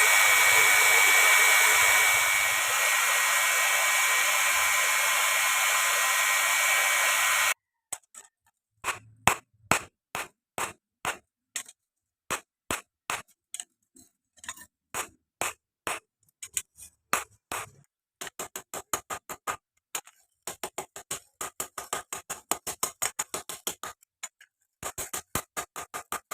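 A steady motor whir, like a forge blower or power tool running, cuts off abruptly about seven seconds in. Then come sharp hammer blows on steel, spaced out at first and later in quick runs of several blows a second, as in forging.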